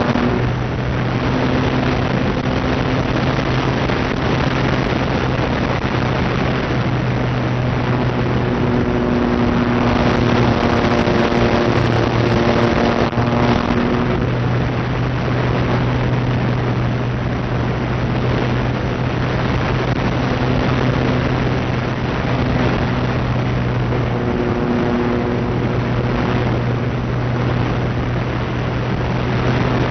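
Electric motor and propeller of a radio-controlled FPV plane in flight: a steady buzzing hum whose upper tones come and go as the throttle changes, over a rush of air noise.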